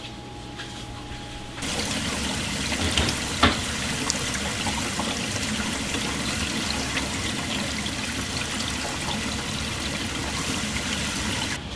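Tap water running steadily into a stainless steel bowl of water in a sink, splashing and churning as salt and dirt are rinsed off sea cucumbers. The water starts about a second and a half in, after a quiet hum, and stops just before the end, with a brief knock a couple of seconds after it starts.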